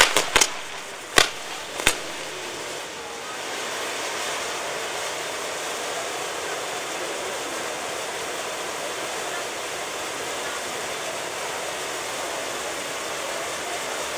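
A few sharp firework bangs in the first two seconds, then the steady hiss of a ground-mounted firework wheel's spark fountains burning.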